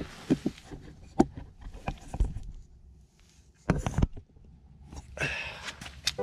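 Close handling noise: scattered light clicks and knocks, a louder thump just before four seconds in, and a hissing rustle about a second before the end.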